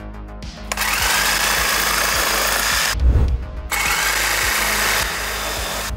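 Electric jigsaw running in two stretches, starting about a second in and again a little before four seconds, with a short break between. In the second stretch it is cutting a foam block with a 3D-printed plastic blade. Background music with a beat plays under it.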